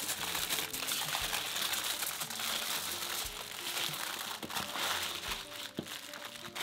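Aluminium foil crinkling and crumpling as hands wrap a burrito tightly in it.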